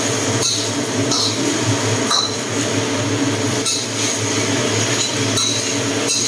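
Greens being stir-fried in a wok on a gas stove: a steady sizzle over a low hum, with a metal spatula clinking against the wok about six times at uneven intervals.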